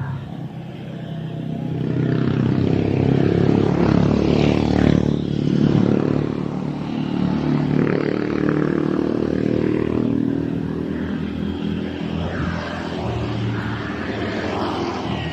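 Steady motor engine noise that swells about two seconds in and stays loud.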